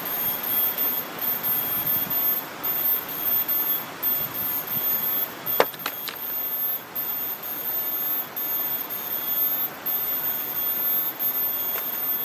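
Forest cicadas (kinjeng tangis) singing a continuous high-pitched drone over rustling foliage. About halfway through, a few quick dry ticks, a dry teak leaf falling and landing.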